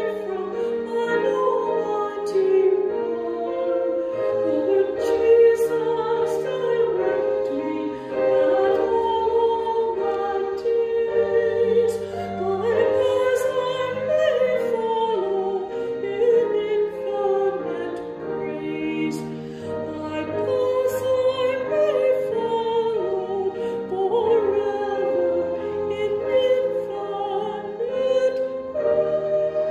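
A solo high voice singing a slow hymn with a slight waver on its held notes, over an accompaniment of long sustained low notes.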